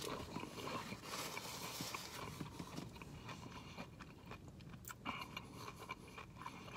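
A person chewing a mouthful of tortilla chip topped with burrito-bowl food: faint, irregular crunches and mouth clicks, a little louder in the first two seconds.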